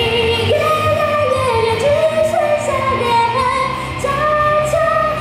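A woman singing a pop song live into a handheld microphone, her melody held in long notes that step up and down, over backing music with drums and cymbals.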